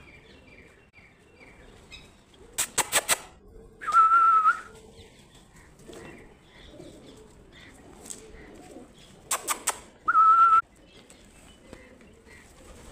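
A person whistling to call a litter of puppies to food: four quick clicks, then a short, steady, high whistle. The pattern comes twice, about six seconds apart.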